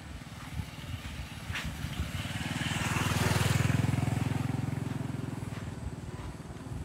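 Small motorbike riding past on a dirt road: its engine grows louder as it comes closer, is loudest about three and a half seconds in, then fades as it moves away.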